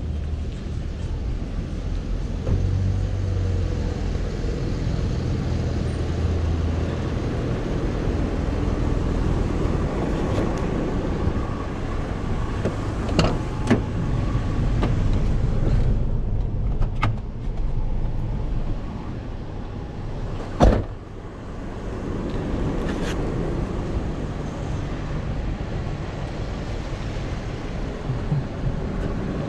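Car driving, with steady engine and road rumble heard from inside the cabin. A few light clicks come through, and one sharp knock about two-thirds of the way in is the loudest sound.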